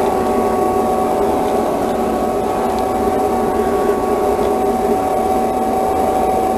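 Shop vacuum running steadily with a motor whine, its hose sucking up cut vinyl chips from the CNC router bed.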